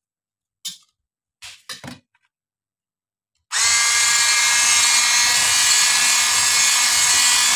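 A few short knocks, then about three and a half seconds in an electric hand mixer switches on and runs steadily at medium speed with a motor whine, its wire beaters whisking eggs, sugar, oil and milk in a plastic bowl.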